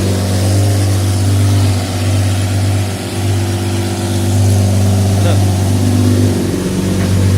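Lamborghini Murciélago LP640's 6.5-litre V12 on its stock exhaust, idling steadily.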